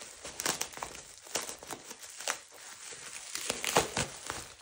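Plastic bubble wrap crinkling and crackling in irregular bursts as hands pull it open to unwrap an item, loudest near the end.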